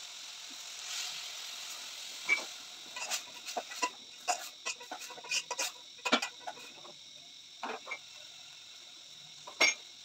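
Metal spoon clinking and scraping against an aluminium cooking pot as githeri is stirred, over a steady faint hiss, with a louder clank near the end.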